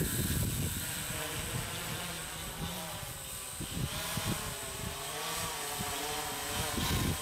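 Walkera Voyager 3 quadcopter hovering overhead, its motors and propellers whining with a pitch that wavers up and down as the motors adjust. Wind rumbles on the microphone.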